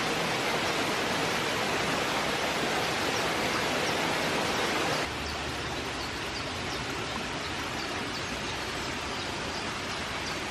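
Steady rushing of water from a small forest waterfall cascade. The sound drops a little in level and changes character abruptly about halfway through.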